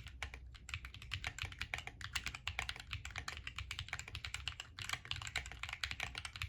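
Fast, continuous typing on a Planck ortholinear mechanical keyboard with lubed Akko Lavender Purple tactile switches, an FR4 plate, case and plate foam, and DSA keycaps: a dense run of keystroke clicks with a few brief pauses.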